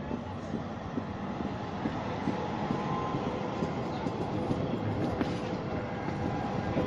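Simmering-Graz-Pauker (SGP) articulated tram passing close by, its wheels rumbling and rattling over the rails with scattered knocks, growing a little louder as it goes past. A faint steady high tone comes in about three seconds in.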